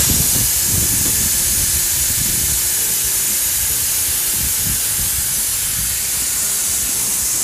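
Compressed air hissing steadily out of a dump truck's air brake tank through its drain valve, opened by pulling the lanyard; the tank is being blown down to purge water from the air brake system.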